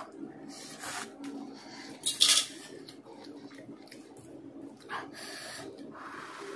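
A person eating masala Maggi instant noodles, with wet chewing and slurping of the noodles. There is a sharp, loud slurp about two seconds in and shorter ones later, with soft clinks from the glass bowl.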